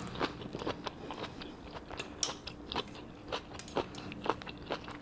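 A person chewing food, with irregular sharp clicks and smacks of the mouth, several a second.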